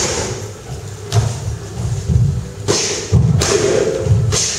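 Gloved punches and kicks landing on kickboxing pads and heavy punching bags: a run of irregular thuds and sharp slaps, echoing in a large hall.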